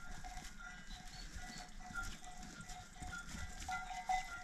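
Quiet background music: a soft melody of short, repeated held notes.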